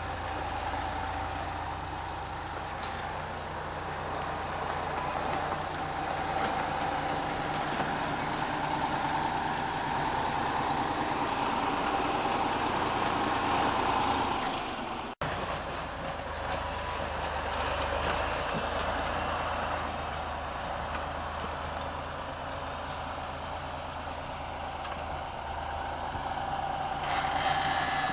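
GS-14 motor grader's diesel engine running steadily under work, with a steady whining tone over the rumble; the sound breaks off for an instant about halfway through.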